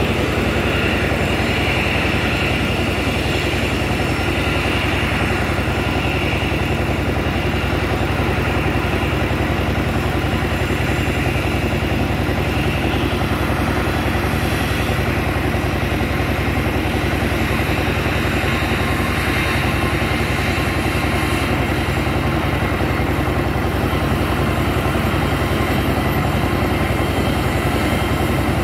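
Jet engines of an Airbus A320-family airliner running at taxi power: a steady, loud low rumble with a higher whine on top.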